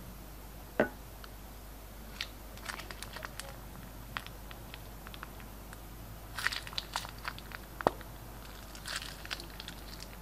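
Glossy slime being worked by hand, giving scattered sticky clicks and crackles in short clusters, with two sharper knocks, one about a second in and one about two-thirds of the way through.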